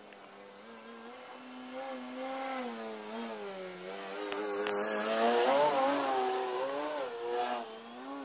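Electric RC aerobatic plane's Torque 2814/820 brushless motor spinning a 12x6 APC propeller, a droning whine that wavers up and down in pitch as the plane manoeuvres. It swells to its loudest about five to six seconds in as the plane passes close, then eases off.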